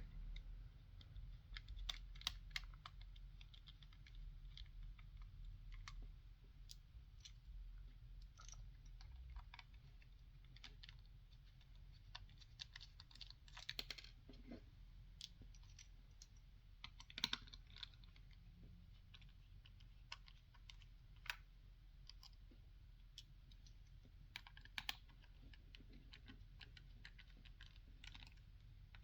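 Faint, scattered small clicks and taps of a tri-point screwdriver working the four screws out of the back shell of a Nintendo Switch Joy-Con, over a low steady hum.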